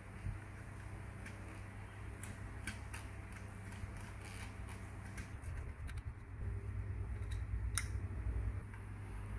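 Handling noise of a small plastic RC truck chassis on a work mat: scattered light clicks and knocks, with a louder low rumble between about six and eight and a half seconds, over a steady low hum.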